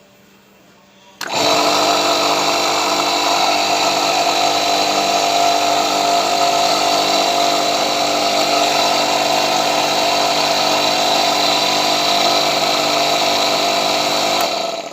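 Electric jet cleaner (pressure washer) motor switched on, running steadily with a high whine for about thirteen seconds, then switched off. The machine, which was dead before the repair, is running again.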